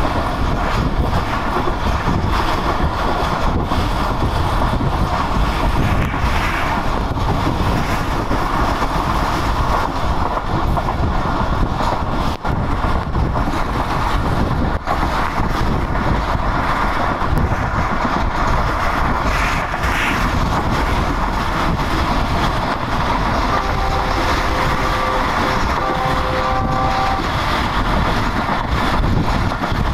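Passenger train running at speed: a steady rumble of coach wheels on the rails, mixed with wind rushing past an open coach window. About three-quarters of the way through, a faint tone sounds in a few short blasts.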